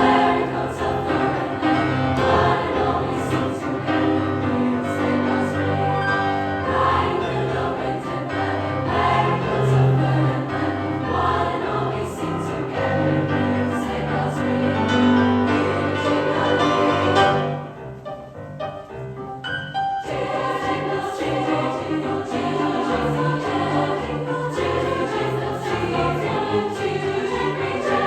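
Treble choir of sopranos and altos singing a Christmas song. The sound thins out suddenly about two-thirds of the way through, stays softer for about two seconds, then the full choir comes back in.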